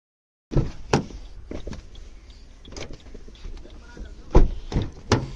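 Footsteps and handling knocks, then the rear door of a Maruti Suzuki Grand Vitara being opened, with a loud clunk about four seconds in and a few lighter knocks after it.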